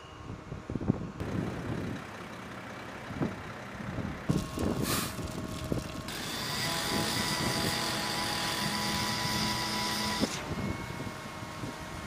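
Truck-mounted concrete pump's engine running, with construction-site machine noise. The sound changes abruptly a few times, and a steady high whine sits over it from about halfway through until near the end.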